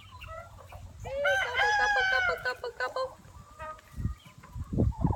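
Rooster crowing once, a long call of about two seconds, with softer clucks and chirps from other chickens around it. A few dull low thumps come near the end.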